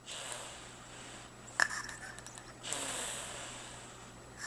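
Baby snoring in its sleep: two long, raspy breaths with a short sharp click about one and a half seconds in.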